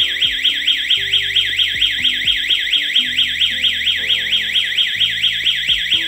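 Burglar alarm siren sounding: a loud, high electronic wail sweeping rapidly up and down, about six sweeps a second.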